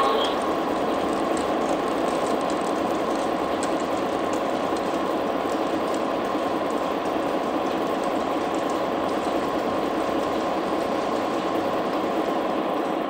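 American Flyer S-gauge model freight train, led by Chessie System GP20 diesels, running on the layout track: a steady whirring rumble of the motor and the cars' wheels rolling, with faint light clicks over the track.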